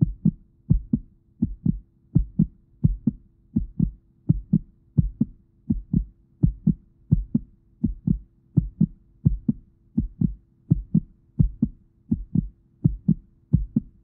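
Heartbeat: steady paired lub-dub thumps, a little over one beat a second, over a faint steady low drone.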